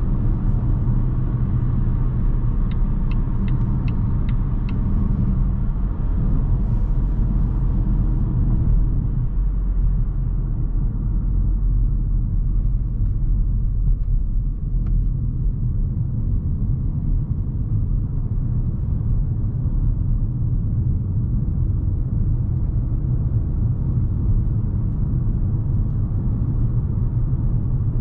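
Cabin noise of a 2020 Volvo V60 T5 Cross Country on the move: a steady low road and engine rumble, with a short run of turn-signal ticks a few seconds in. The hiss of wind and tyres thins out after about ten seconds as the car slows onto a ramp.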